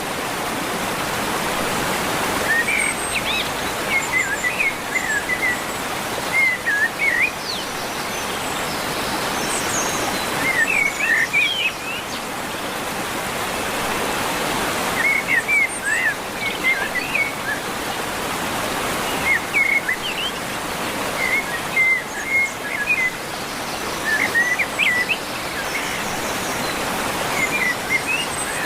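Small birds chirping in short twittering phrases every few seconds over a steady rushing hiss.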